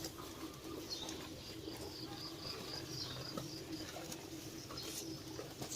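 Birds calling: a low, steady cooing under a quick run of short, high chirps about a second and a half in, with more chirps near the end.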